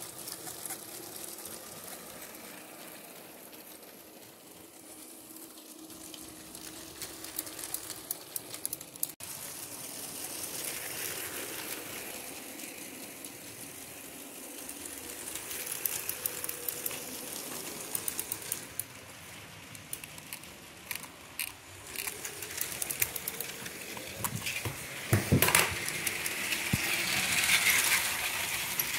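Toy Lego trains running on plastic Lego track, with a light, irregular clicking and rattling of wheels and cars, louder in the last few seconds.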